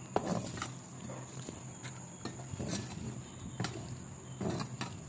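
A spatula stirring sauce-coated devilled dates in a metal pan, with irregular scrapes and clicks against the pan.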